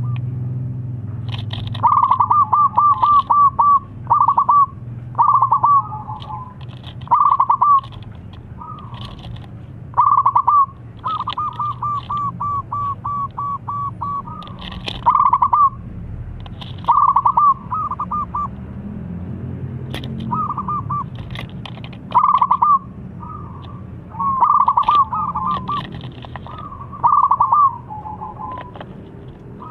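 A young zebra dove (perkutut) cooing in short phrases of rapid, clipped notes, some running into a long series of ten or so, repeated every one to two seconds. Small birds chirp faintly higher up behind it, over a low steady hum.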